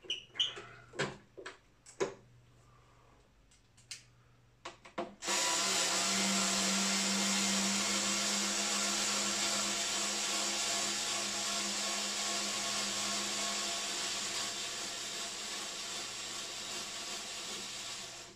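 Small cordless screwdriver with a hex bit turning an Allen screw out of a subwoofer's metal grille: a steady motor whine that starts suddenly about five seconds in and runs for about thirteen seconds. A few light clicks and taps of handling come before it.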